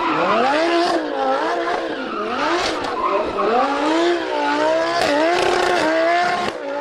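Sports-car engine revving up and down over and over, with a steady hiss behind it.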